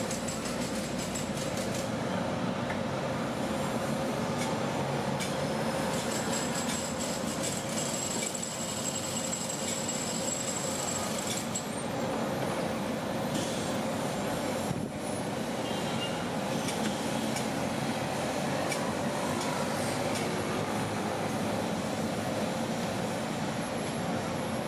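Steady mechanical din of construction machinery at a building site, with a thin high whine for several seconds early on and a few scattered clicks.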